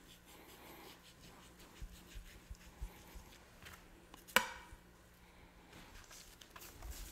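Knife slicing fat off a raw brisket on a plastic cutting board: quiet scrapes and small ticks of the blade, with one sharp knock a little over four seconds in.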